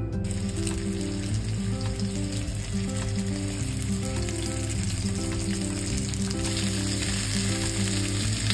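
Floured mahi-mahi fillets frying in oil with minced garlic in a frying pan: a steady sizzle that starts suddenly as the fish goes in and grows louder about six and a half seconds in.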